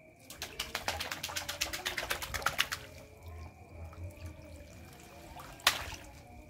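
Water splashing and draining through a perforated plastic fish-sorting basket as it is worked in a catfish pond. A rapid patter of splashes lasts for about two seconds, then quieter sloshing, and one sharp short hit comes near the end.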